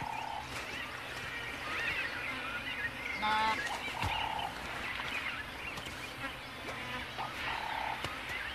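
Wild bush ambience with birds calling: a short, even whistled note repeats about every four seconds over faint chirps. A single short animal call comes about three seconds in.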